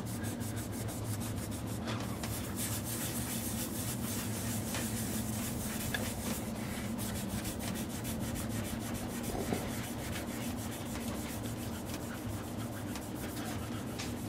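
Hand scrubbing the oxidized paint of an engine's valve cover in rapid back-and-forth strokes, a steady rasping rub.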